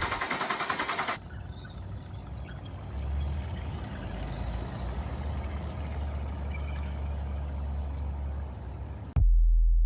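2003 Nissan Xterra's 3.3 L V6 being cranked by the starter, a fast pulsing churn with a whine, that stops about a second in without the engine catching: a no-start, which turned out to be no spark from a faulty distributor. A low steady rumble follows, and a much louder low hum cuts in near the end.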